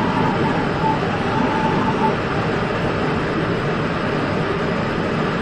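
UTA FrontRunner commuter train running at speed, heard from the leading car: a steady rumble of wheels on rail. A faint high whine fades out about two seconds in.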